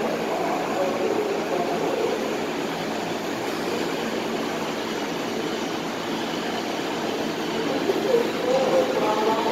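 R188 subway train approaching through the tunnel into the station, a steady rail noise, heard over the murmur of a crowded underground platform.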